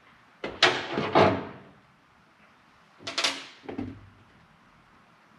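Short knocks and clatters of metal tools and engine parts being handled: three in quick succession about half a second in, then two more about three seconds in.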